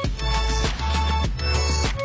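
Background music with a steady drum beat and heavy held bass notes.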